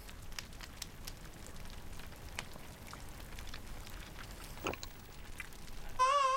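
Faint scattered ticking and pattering over a quiet hiss, with one short chirp-like sound near the end; in the last half-second, guitar music comes in loud.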